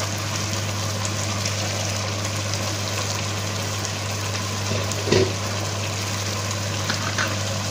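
Mutton curry simmering in a karahi on a gas stove, a steady bubbling sizzle over a low constant hum, the gravy's water almost cooked off. One short knock about five seconds in.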